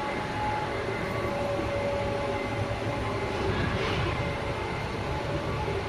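Steady rumbling machine noise with a few held tones over it, swelling slightly about four seconds in.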